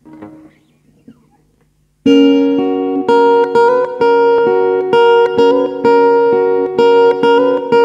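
Acoustic guitar playing an intro of picked notes that ring on, at about two notes a second, starting about two seconds in. Before that there are a few faint knocks.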